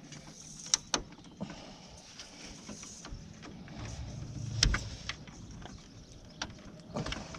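Scattered small clicks and knocks of hands working a plastic clip at the headlight housing and radiator support, with a louder dull thump about four and a half seconds in.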